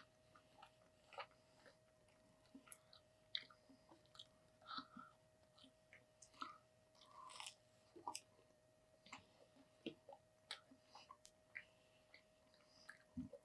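Quiet, close-up chewing and biting of Chicken McNuggets: irregular small crunches and mouth clicks, with a faint steady hum underneath.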